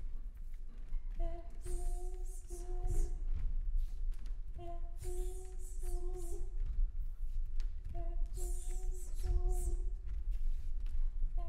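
Voices humming a short phrase of a few held notes, repeated about every three seconds, with breathy hissing sounds over the notes and a steady low rumble underneath.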